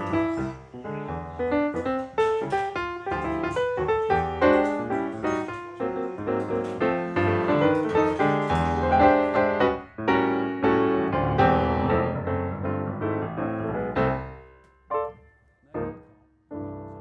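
Background piano music: quick runs of notes that thin out about three-quarters of the way through into three separate struck chords, the last left to ring.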